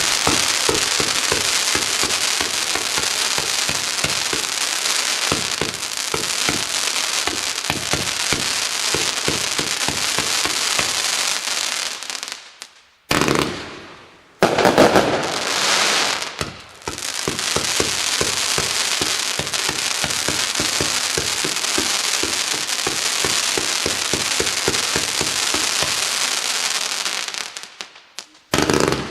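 A 91-shot Z-shape 500-gram consumer firework cake firing in a rapid, continuous string of shots with dense crackling, broken by a short pause about halfway through and dying away shortly before the end.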